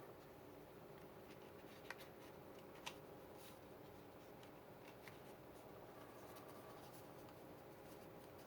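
Near silence with a few faint paper clicks and rustles, about two and three seconds in and again later, as paper journaling cards are slipped into a paper satchel.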